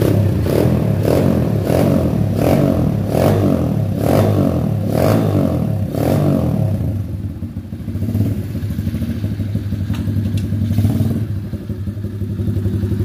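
SY Motos 110cc four-stroke mini trail bike engine running, revved in quick repeated blips about twice a second for the first half, then settling to a steadier idle with one more rev near the end.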